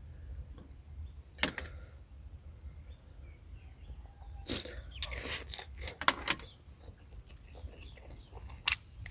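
Crickets or other insects trilling steadily at a high pitch, with a few separate short knocks and clicks of handling spread through.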